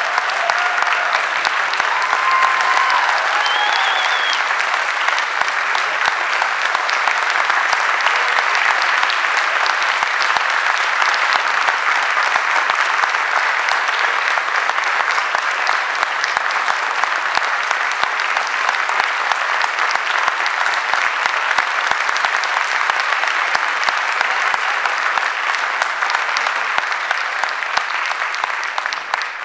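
Audience applause, steady and full, with a few voices calling out over it in the first few seconds; it starts to die away at the very end.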